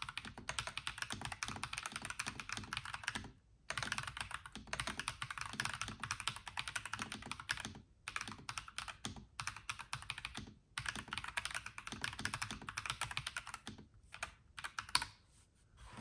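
Typing on a NuPhy Halo96 mechanical keyboard with Rose Glacier tactile switches: rapid key clicks in runs of a few seconds, separated by a few short pauses.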